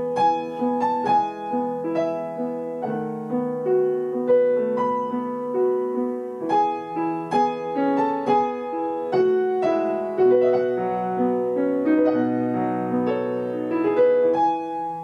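Piano playing a flowing melody of quick, evenly paced notes over lower sustained notes, without a break.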